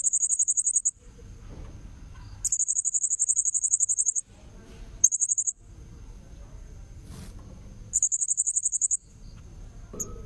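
Blue-crowned hanging parrot (serindit) calls from a lure recording: four bursts of rapid, very high-pitched trilling chatter, each lasting under two seconds, with short gaps between them.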